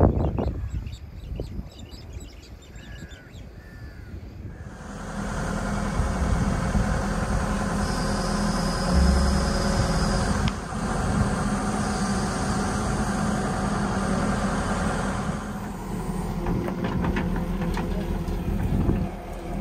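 Crows cawing for the first few seconds. About five seconds in, a JCB tracked excavator's diesel engine comes in abruptly and runs loud and steady for about ten seconds, then eases off, with scattered clicks and knocks near the end.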